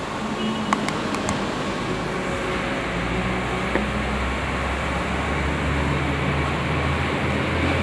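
A few sharp clicks from pushbuttons on a homemade torch height controller panel over a steady machine hum; a deeper hum sets in about three seconds in and grows toward the end.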